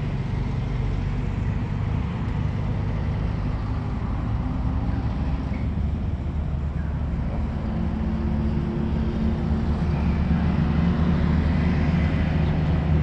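A machine running steadily with a low hum, growing a little louder over the last few seconds.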